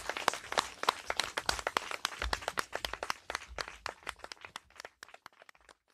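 Applause from a small audience, individual claps distinct, thinning out and dying away near the end.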